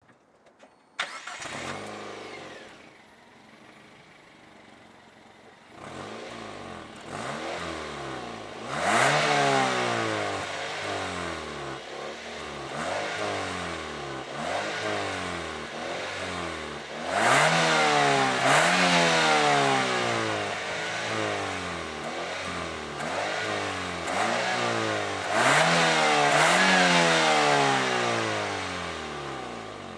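Mazda 2 1.3 Bifuel's four-cylinder engine starting about a second in and idling briefly. From about six seconds it is revved repeatedly while standing still: short blips and several longer revs that climb and fall back, the loudest around the middle and near the end.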